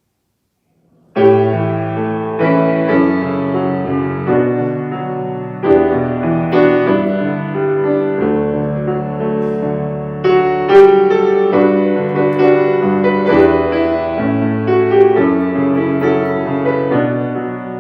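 Piano playing a slow piece in chords, starting suddenly about a second in after silence.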